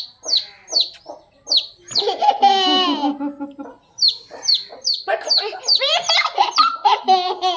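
A chick peeping over and over, each peep a short high descending chirp, about two to three a second. Voices and laughter break in over the peeping twice.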